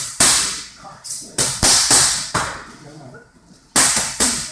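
Boxing gloves striking focus mitts in quick combinations: about eight sharp slaps in irregular bunches, each trailing off in a short echo.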